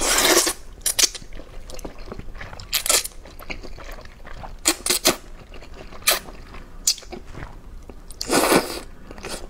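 A person slurping luosifen rice noodles and chewing them. There is a long slurp at the start, short slurps and mouth sounds through the middle, and another long slurp near the end.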